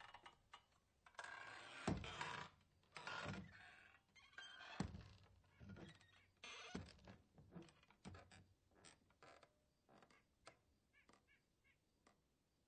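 Saloon-style swinging doors pushed open and swinging back and forth: a series of swishes and knocks, loudest about two and five seconds in, each swing weaker and closer together as the doors die down, with a few short squeaks near the end.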